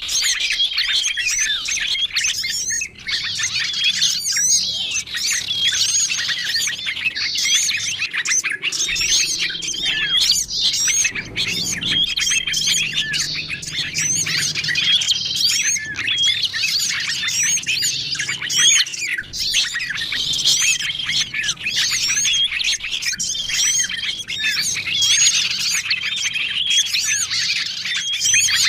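Many small songbirds chirping, twittering and squawking over one another in a dense, unbroken chorus, with short high whistled notes repeating throughout: a bird-luring (pikat) recording of small birds such as sunbirds and prinias calling excitedly.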